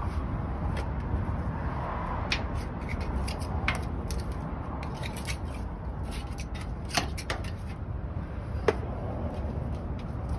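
A paintbrush scraping and dabbing grease onto the steel lower leg of a semi-trailer's JOST landing gear, giving scattered soft scrapes and light taps, with a sharper tap a little before the end, over a steady low rumble.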